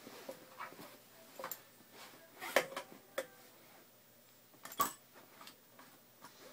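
A small plastic baby rattle toy being handled and knocked about on a crib mattress and rail, giving scattered clicks and rattles. The loudest knocks come about two and a half seconds in and again near five seconds.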